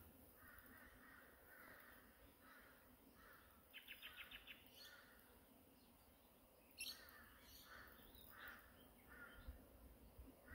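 Faint bird calls in a quiet background, including a quick run of short chirps a little under four seconds in, with a single sharp click about seven seconds in.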